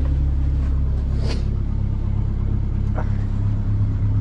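Engine-driven welding machine on a welding rig running steadily with a low rumble, with a light knock about a second in and another about three seconds in.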